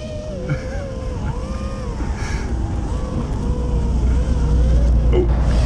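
FPV racing drone's motors whining, the pitch wavering up and down with the throttle, over the low rumble of a semi-truck that grows louder toward the end.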